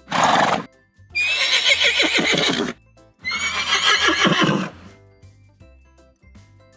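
A horse neighing twice, each whinny about a second and a half long and starting high before falling away, after a short breathy burst at the very start. Soft background music runs underneath.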